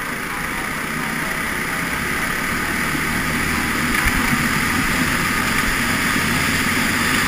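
Racing kart engine at high revs, pulling hard from the start of a heat, heard from a camera mounted on the kart with wind on the microphone. It grows gradually louder.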